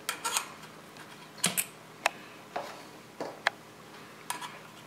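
Metal spoon clinking and tapping against the side of a stainless steel stockpot while dumplings are moved around in the stew: a scattering of light, sharp clinks at irregular intervals.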